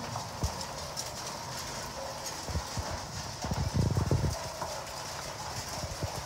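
Heavy rain falling steadily, with scattered short low knocks and a cluster of low thumps about four seconds in.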